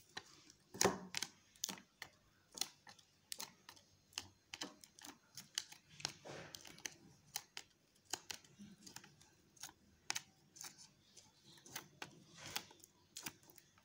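Dust-absorber sticker dabbed repeatedly onto a smartphone's glass screen to pick up dust: a run of light, irregular taps and clicks, a few each second.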